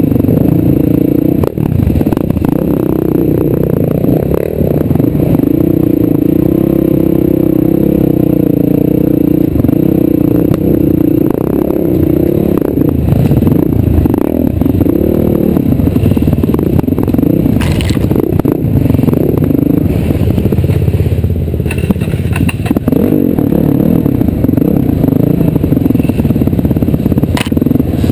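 Motorcycle engine running, its pitch rising and falling as it revs, with clattering and knocks from the bike over rough ground.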